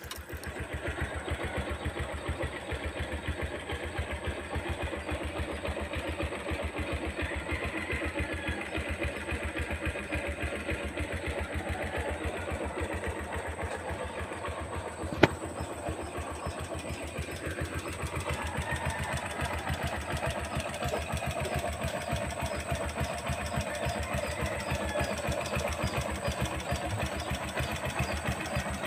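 Bajaj CT100's single-cylinder four-stroke engine idling steadily, with an even, fast beat. A single sharp click cuts through about halfway.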